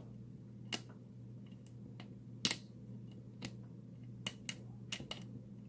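Scattered sharp metallic clicks and ticks from a tool probing a CISA 30mm padlock, trying to bypass the shackle; the lock turns out to be shielded against it. A steady low hum runs underneath.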